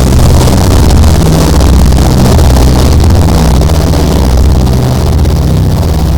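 Drone-noise music: a loud, steady, dense low drone of sustained deep tones, with a layer of distorted hiss over it.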